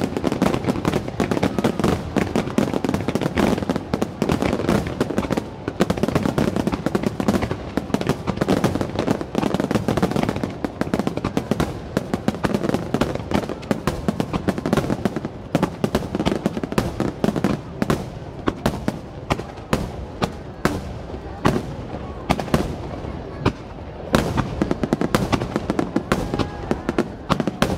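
Fireworks finale: many aerial shells bursting in rapid, overlapping succession, a near-continuous run of sharp bangs.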